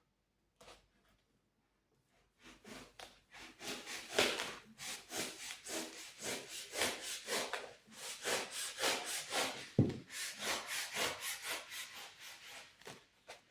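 Rapid back-and-forth strokes of a hand tool rasping on the metal cable tray, about three strokes a second, starting a couple of seconds in.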